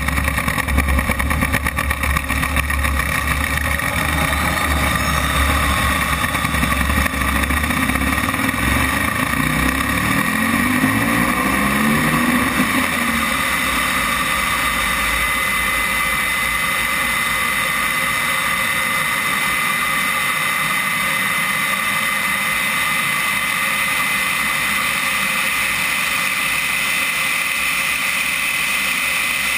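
RC model jet's turbine engine whining at high power, heard from a camera on the airframe, through the takeoff and climb-out. For the first ten seconds or so a heavy rumble from the wheels rolling on the runway runs under it, then stops as the jet lifts off, leaving a smooth, steady whine with a high tone.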